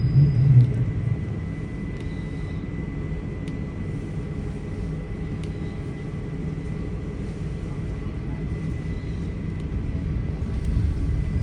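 Passenger train running: a steady low rumble with a thin, steady high whine and a few faint ticks.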